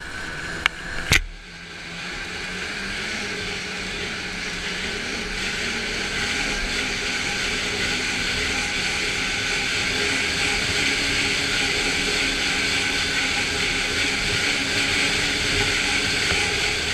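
Snowmobile running along under way, a steady engine note over a rushing hiss, growing louder over the first few seconds. Two sharp knocks sound just under a second in.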